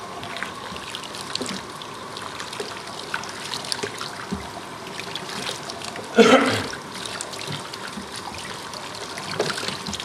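Cold water running and trickling steadily as soap is rinsed out of a canvasback duck skin's feathers, with one brief louder burst about six seconds in.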